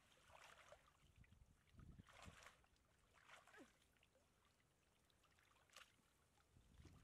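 Faint splashing and sloshing of muddy water as a mesh net trap is worked through a shallow ditch, a few separate splashes over an otherwise very quiet background.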